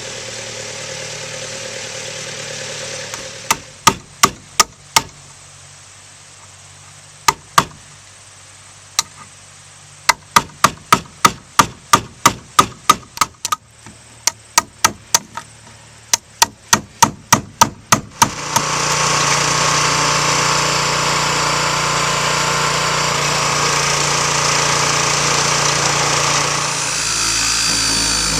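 Hammer blows in quick runs of strikes, each run a few to about ten blows, then a power tool running steadily for about ten seconds.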